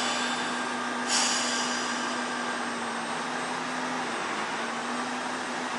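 KiHa 25 diesel railcar standing at the platform with its engine running steadily; about a second in, a hiss of compressed air sounds as the air brakes are released, then fades. Near the end the engine note shifts as the railcar begins to pull away.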